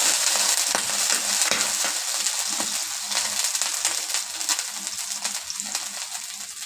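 Water sizzling and boiling off a hot non-stick tawa (flat griddle pan), a steady hiss with scattered small pops that fades as the water evaporates.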